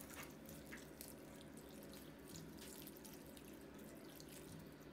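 Faint trickling and splashing of plain water poured in a thin stream into a metal pot of fish.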